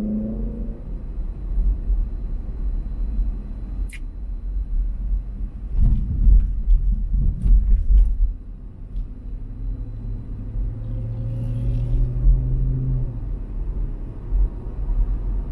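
Road noise inside a moving car: a steady low rumble of tyres and engine. There is a sharp click about four seconds in, and from about two-thirds through an engine hum rises gently before dropping away.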